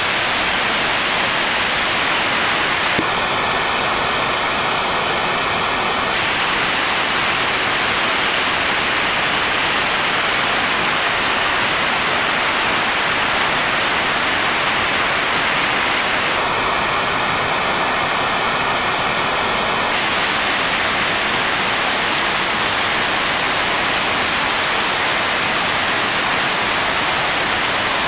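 Mountain waterfall and its rocky cascading stream: a loud, steady rush of water.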